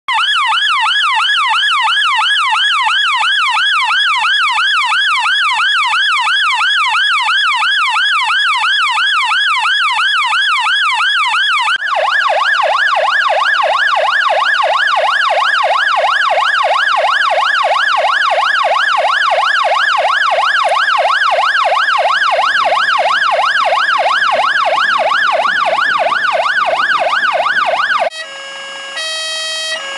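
Fire engine electronic sirens: a wail rising and falling rapidly, about three times a second, then about 12 s in a second siren sweeping a little faster and lower. Near the end it switches to alternating steady hi-lo tones.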